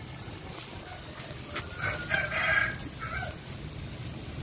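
A rooster crowing once, starting about a second and a half in and lasting about a second and a half, over a steady low rumble.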